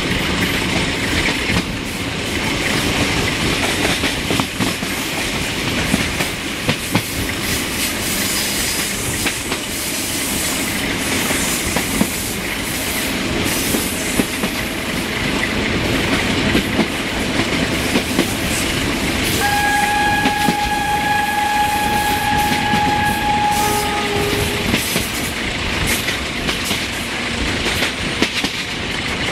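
Train running along, heard from an open coach window: wheels clattering over the rail joints under a steady rush of wind and rolling noise. About twenty seconds in, the 060-DA diesel locomotive's horn sounds one long note of about four seconds, then a short second note at a different pitch.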